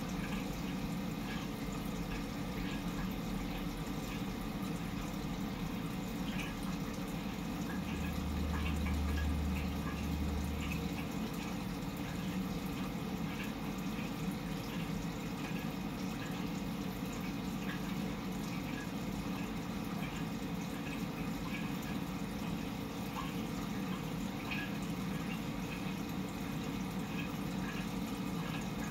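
Steady running water from fish-tank filtration, with faint scattered drip-like ticks; a brief low hum comes in about eight seconds in and fades by about eleven.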